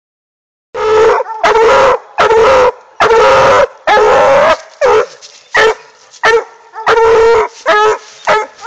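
Black and tan coonhound pup barking treed: a run of loud bawling calls, the first five drawn out, then shorter chop barks coming more quickly from about halfway through. The tree bark is the hound's signal that she has game up a tree.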